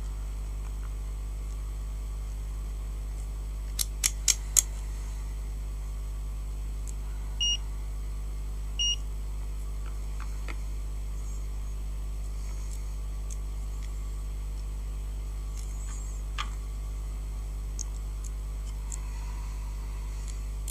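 Two short high beeps from a digital multimeter, about a second and a half apart, after four quick clicks about four seconds in, as the meter is made ready for checking a graphics card's power rails. A steady low hum runs underneath.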